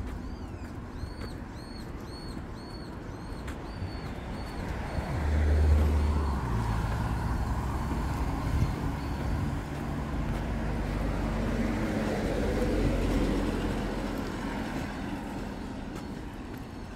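Motor vehicles passing on a road. An engine's low hum is loudest about six seconds in, and the traffic noise swells again later and fades toward the end. A bird gives a rapid series of high chirps in the first few seconds.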